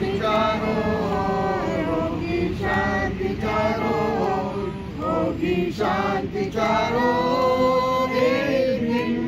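A mixed group of men and women singing a song together as a group, with long held notes.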